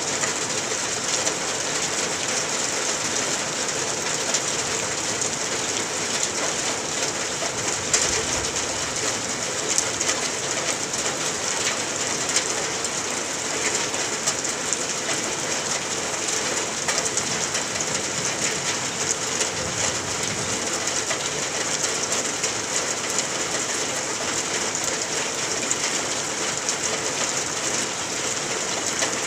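Steady rain falling on grass, weeds and puddles: an even hiss of many fine drops.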